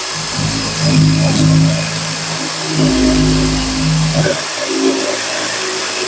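Corded electric drill running a hole saw through the wall of a plastic bucket: a steady motor whine over the hiss of the teeth cutting plastic. The motor's note wavers and dips a few times as the saw bites under load.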